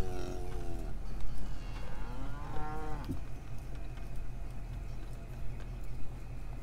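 Cattle mooing: one call tailing off just under a second in, then a second call, rising and falling, from about two to three seconds in. A steady low rumble of the pickup truck creeping along runs underneath.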